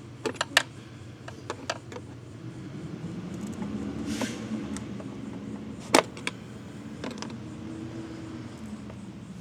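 Scattered clicks and knocks of plastic intake parts and a tool as a snorkel intake hose is fitted and its clamp tightened, with one sharp knock about six seconds in, over a steady low hum.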